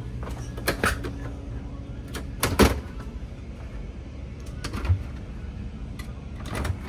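The doors of an RV's four-door refrigerator being unlatched and swung open: a few clicks and knocks, the loudest a little over two and a half seconds in. A steady low hum runs underneath.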